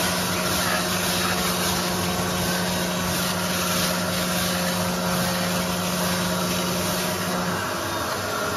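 Coin-op carpet and upholstery extractor's vacuum motors running steadily, sucking through the wand as it is passed over a car floor mat. A steady low hum under the suction noise stops shortly before the end.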